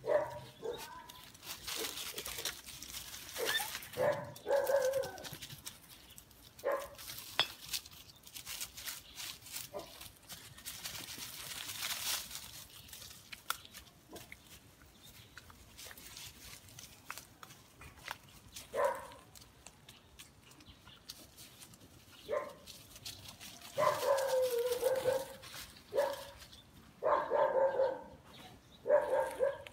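Seven-week-old Phu Quoc Ridgeback puppies barking and yipping in short, scattered bursts while they play, with a busier run of calls near the end.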